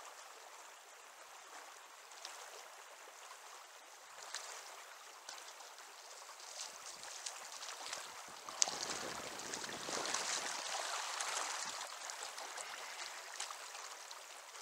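River current rushing steadily over rocks. About eight seconds in, splashing grows louder for a few seconds as a hooked brown trout is drawn in and grabbed by hand in the water.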